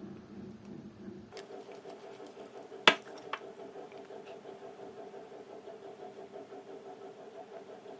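A steady, slightly pulsing machine hum that steps up to a higher pitch about a second and a half in, with one sharp click about three seconds in.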